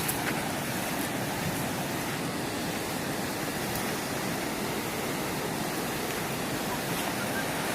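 Steady rush of a fast mountain river, the Seti River's water running over rocks.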